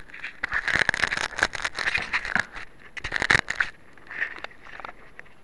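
Handling noise on a keychain camera's microphone as it is moved about: irregular crackles, clicks and scrapes, dense at first and thinning out after about three and a half seconds.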